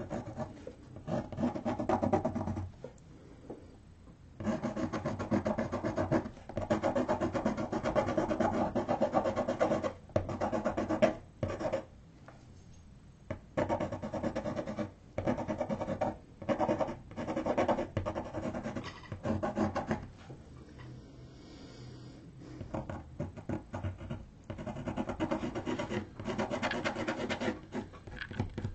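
Pencil shading on drawing paper: runs of rapid, scratchy back-and-forth strokes, broken by pauses of a second or several where the pencil lifts.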